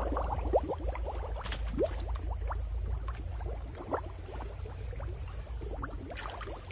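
Water bubbling and gurgling from a large burrow hole in wet mud, a rapid, irregular run of small pops and little rising blips.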